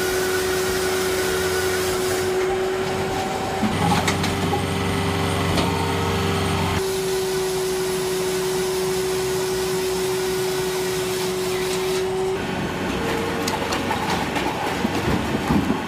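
Firewood processor machinery running with a steady hum. The sound changes abruptly several times, at about 2.5, 4, 7 and 12 seconds in.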